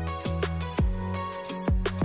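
Background music with a kick-drum beat under held synth-like chords.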